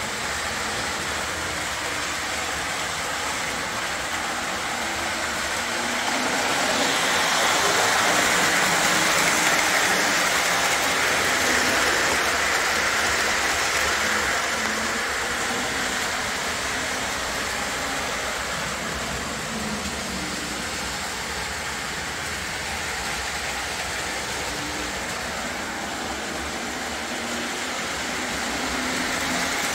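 Model trains running on a layout: a steady rolling, whirring noise of wheels on track that swells louder for several seconds about a quarter of the way in, then settles.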